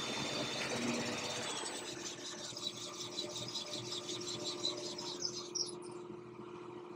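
Alternator test bench running down: a machine hum with a steady high whine that stops about one and a half seconds in, then a fading rhythmic ticking, about four a second, as it winds down.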